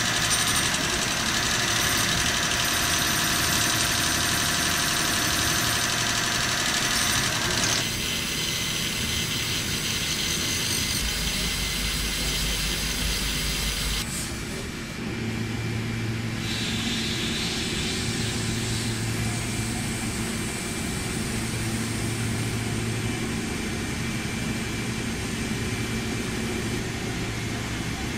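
CNC mill-turn machine running while machining a steel crankshaft: a steady machine whine made of several constant tones, whose character changes about 8 seconds in and again about 14 seconds in, with a low hum in the later part.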